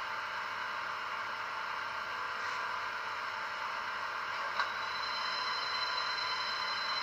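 Steady running sound from a model electric locomotive standing still: an even hiss with several steady tones. About four and a half seconds in there is a click, and a high steady whine starts and holds.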